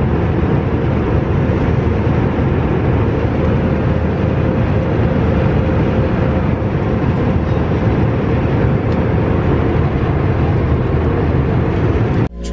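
Airliner cabin noise in flight: a loud, steady rush of engine and airflow noise with a faint steady hum. It cuts off suddenly near the end.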